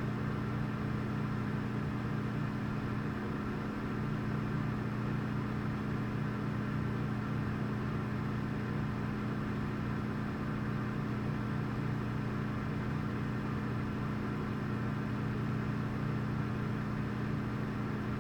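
Refrigerator humming steadily: a constant low electrical drone with a faint hiss above it, no change in pitch or level.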